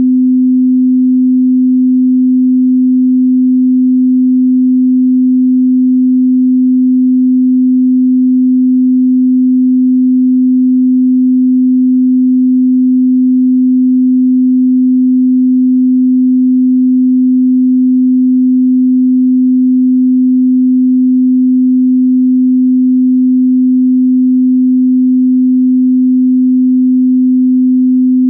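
Steady 255 Hz pure sine tone, one low hum held at constant loudness without any change in pitch.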